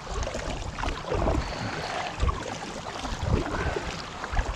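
Tandem sit-on-top kayak being paddled through calm water: paddle blades dipping and pulling, splashing and dripping alongside the hull, with irregular low thuds.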